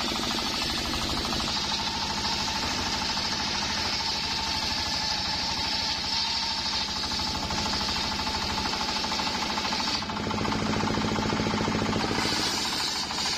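Homemade circular sawmill ripping mahogany: the big saw blade cutting through the wood with a steady high whine over the rapid, even pulsing of the engine that drives it. The cutting whine drops away for about two seconds near the end while the engine runs on, then returns.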